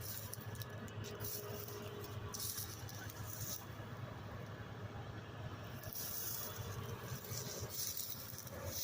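A 200-horsepower Case tractor's engine running with a steady low drone, with stretches of higher hiss over it.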